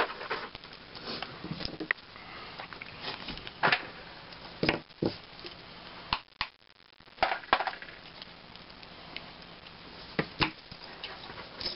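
Irregular small clicks and clinks of 14-gauge galvanized steel chainmail rings and steel long-nose pliers being handled while rings are closed into a 4-in-1 weave.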